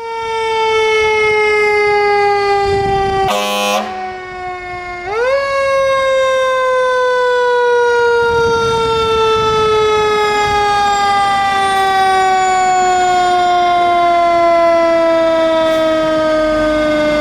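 A KME fire engine's siren wailing as the engine responds to an emergency call. The tone sweeps up quickly about five seconds in, then winds down slowly for about twelve seconds and starts rising again at the very end. A short horn blast sounds about three seconds in.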